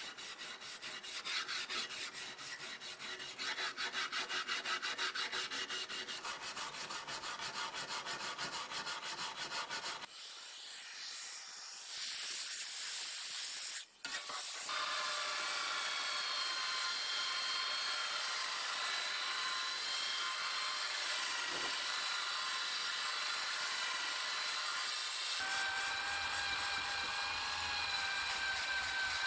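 Wire brush scrubbing rust off a steel shovel blade in rapid back-and-forth strokes. After a cut about 14 s in, a handheld power tool spins an abrasive disc against the rusty blade with a steady whine, its tone shifting about 25 s in.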